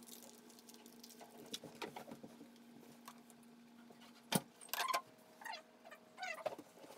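Hand tools and metal faucet parts being handled: a sharp click about four seconds in, followed by short scrapes and squeaks. A faint steady hum runs under the first part and stops just before the click.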